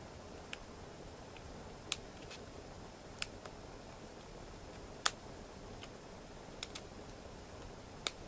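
Small sharp clicks, scattered irregularly about one to two seconds apart over a faint hiss, from a lock pick working the mushroom pin tumblers of a Draper Expert Security six-pin padlock during single-pin picking. The loudest click comes about five seconds in, and two come close together near six and a half seconds.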